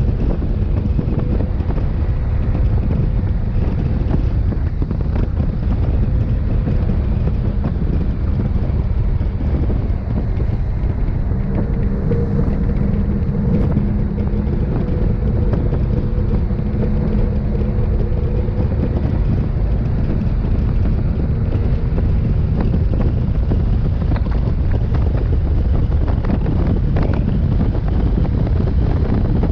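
A boat motor running steadily while the boat travels over water, its drone partly covered by loud wind noise buffeting the microphone.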